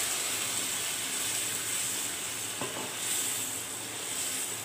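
Hot chickpea masala sizzling in a nonstick kadai as water is poured in and stirred with a spatula; a steady hiss that eases slightly toward the end.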